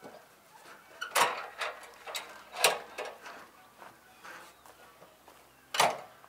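A run of sharp knocks and clatters of objects being handled, three of them louder: about a second in, at about two and a half seconds, and near the end.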